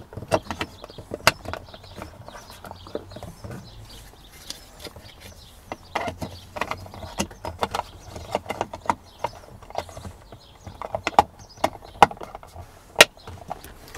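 Irregular plastic clicks and knocks as a Range Rover L322's interior rear-view mirror and the trim around its windscreen mount are handled and pressed into place, with the sharpest snap near the end.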